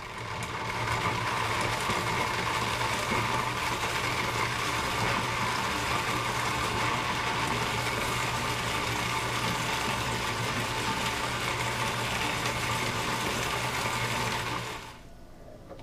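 Blendtec Designer 725 blender running steadily on low speed, mixing chocolate chips into thick almond butter in the Twister jar. The motor stops near the end.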